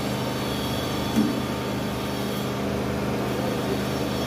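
Steady low mechanical hum of an engine or machine running, with no change in pitch.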